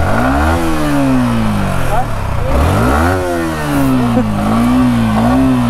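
Yamaha R15M's 155 cc single-cylinder engine revved on the throttle while the bike stands still. Two revs rise and fall, then the engine holds at a wavering mid speed for the last couple of seconds.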